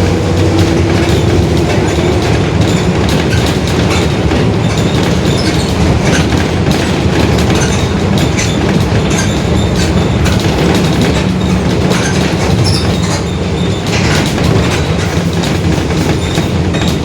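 Mercedes-Benz OF-1721 Bluetec 5 city bus under way, its diesel engine and drivetrain running steadily while the Marcopolo Torino S body rattles and knocks over the road. The rear differential is growling.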